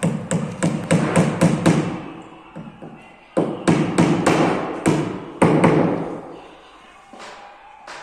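Hammer blows in two quick runs of about three or four strikes a second, with a pause between them, echoing in a large, bare hall.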